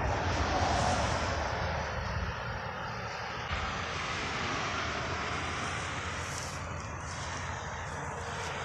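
A steady rushing drone of distant engine noise that slowly fades over several seconds.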